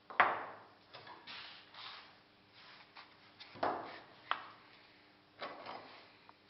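Knocks and gritty scraping from moulding sand being packed and smoothed by hand in a metal moulding flask. The loudest knock comes just after the start, with three more in the second half and scraping in between.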